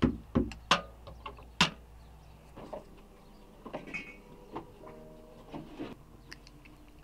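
Fingers sprinkling dry seasoning over flour in a steel mixing bowl: sharp ticks and taps against the metal, four loud ones in the first two seconds, then softer, scattered ones.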